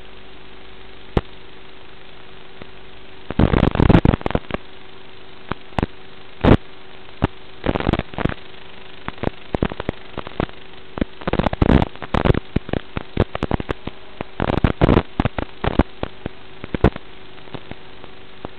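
Radio static from an analog FPV video receiver's audio channel: a steady hiss with a faint hum, broken by clusters of sharp crackling bursts where the signal breaks up.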